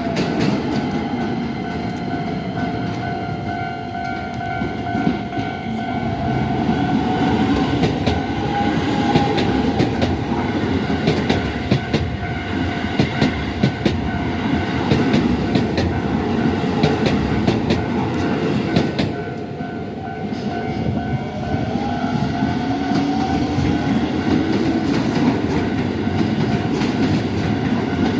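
Trains passing one after another over a Japanese level crossing: steady rail rumble with wheels clacking over the rail joints, loudest in the middle stretch. The crossing's warning bell rings with steady tones, and a slowly rising whine comes from a passing train.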